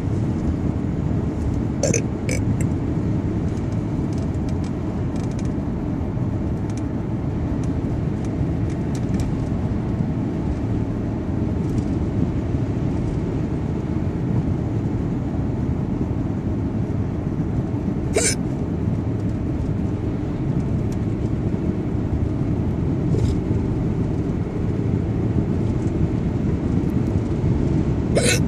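A person hiccuping: a handful of short, sharp hiccups spread out, two close together about two seconds in, then single ones later on, over a steady low rumble.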